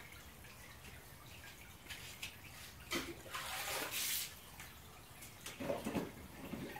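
Wort draining through a vinyl tube from a cooler mash tun's valve and trickling into a plastic bin, with louder bursts about three seconds in and again near the end.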